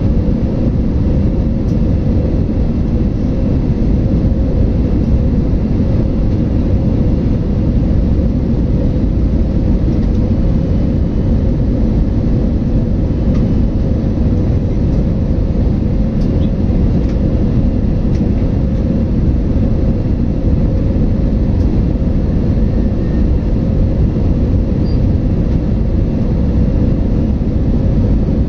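Cabin noise of an IndiGo airliner in flight: a steady, deep rumble of engines and rushing air with a faint steady hum above it.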